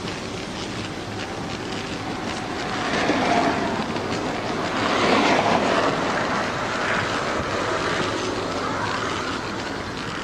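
Cars passing on the road, their tyre and engine noise swelling about three seconds in and again, loudest, about five seconds in.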